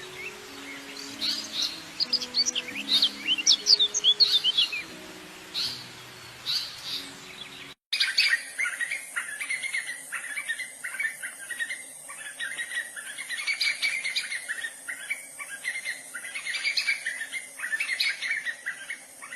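Small birds chirping and twittering. For the first eight seconds a slow, low melody of held notes runs underneath. After a sudden cut, a denser stretch of chattering birdsong follows over a steady high hiss.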